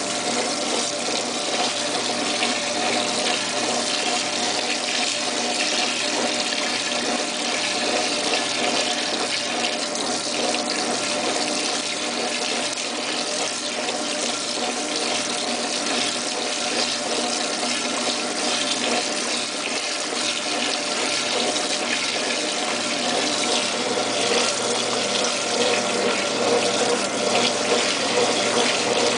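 Washing machine with a steady rush of flowing water and a faint constant hum under it.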